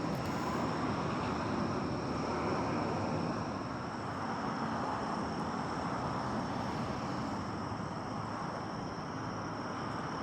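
Steady noise of vehicle traffic, with a thin high tone running under it.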